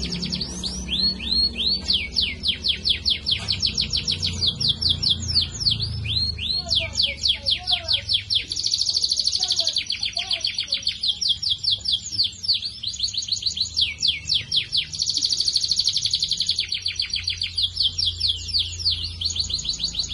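Canary singing: a continuous song of rapid trills made of short, quickly falling notes, broken by two denser, buzzing rolls, about eight seconds in and again near fifteen seconds.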